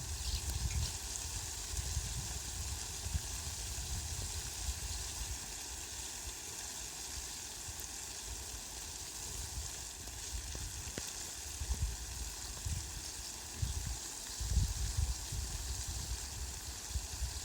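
Heavy rain falling steadily on leafy plants, a dense even hiss, with irregular low rumbling that comes and goes, strongest near the start and in the last few seconds.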